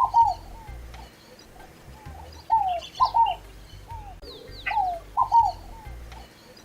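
Scaled dove (fogo-apagou) singing its song, a phrase of two or three short falling notes, repeated three times about every two and a half seconds.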